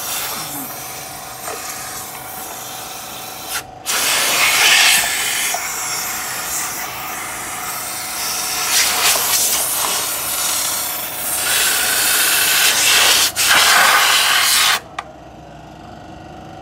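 Hand-pump pressure sprayer hissing as it jets cleaning fluid onto a CVT oil filter that is clogged with dirt. It sprays in long stretches with a short break about 4 s in and another near 13 s, and stops about 15 s in.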